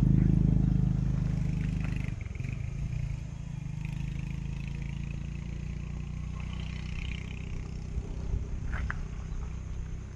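A motor vehicle's engine, loud at first and fading away over the first two seconds, then a steadier low rumble with faint scraping and a couple of short clicks near the end.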